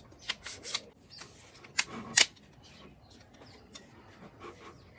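Selfie-stick tripod being handled: a series of sharp clicks with light rustling, the loudest click a little over two seconds in.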